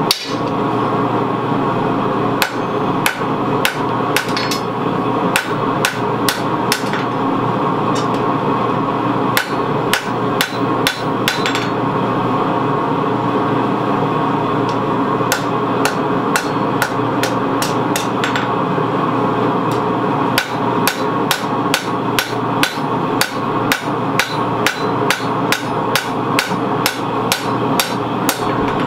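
Hand hammer striking a red-hot 52100 carbon steel knife blade on an anvil, about two blows a second with a pause of a few seconds midway. A steady rushing noise runs underneath.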